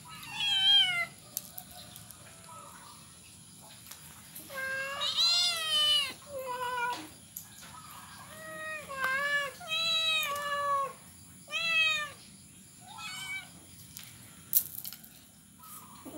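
A group of young cats meowing over and over: about nine separate meows that rise and fall in pitch, mostly short, one longer about a third of the way in. A single sharp click near the end.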